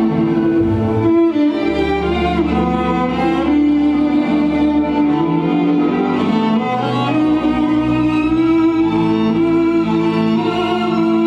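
Cello playing a slow melody of long, held bowed notes, with deep bass notes underneath.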